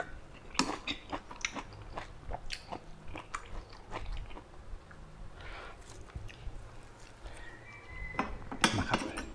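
Close-miked mouth sounds of a person chewing a mouthful of eel curry: many small wet clicks and smacks, with a louder burst of sound near the end.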